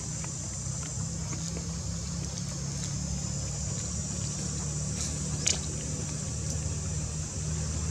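Steady outdoor background of a low, engine-like hum and a constant high-pitched hiss, with a few faint clicks and one sharper tick about five and a half seconds in.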